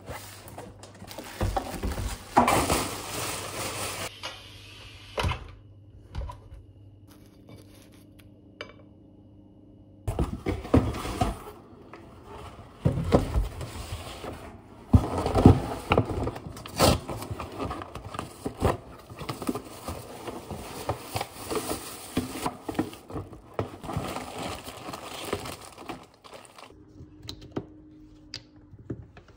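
Cardboard delivery boxes and plastic packaging being handled and unpacked: rustling, scraping and sharp knocks in several busy stretches with quieter gaps between.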